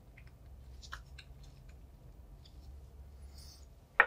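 Faint clicks and rustling of gloved hands screwing a cap onto a small glass vial, with one sharper tap near the end as it is set down on the wooden table.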